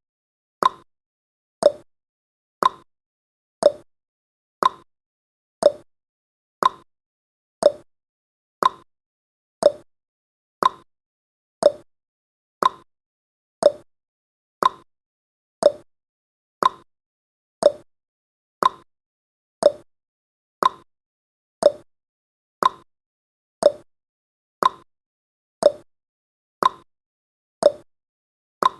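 Countdown timer's clock-style tick-tock sound effect: one sharp tick a second, alternating a higher and a lower tick.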